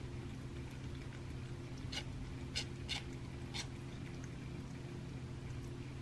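Black cat chewing and licking raw rabbit meat off a plate: about four short, sharp clicks of eating in the middle, over a steady low hum.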